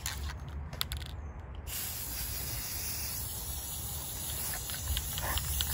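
Aerosol can of Rust-Oleum 2X Ultra Cover matte clear coat spraying: a couple of short spurts, then a steady, continuous hiss from about a second and a half in as the clear coat goes onto the painted kayak hull.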